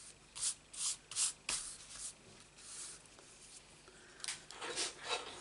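Paper cardstock being handled and slid across a work mat: a series of short papery rubs and scrapes, with a busier cluster near the end.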